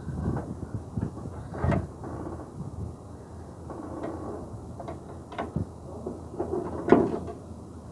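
Irregular clunks and knocks of car parts being handled and taken off, with a louder knock about a second and a half in and the loudest near the end.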